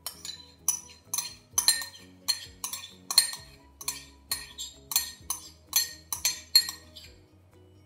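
A spoon clinking against a stainless steel mixing bowl as yogurt is knocked and scraped off it into the flour, about two to three sharp clinks a second.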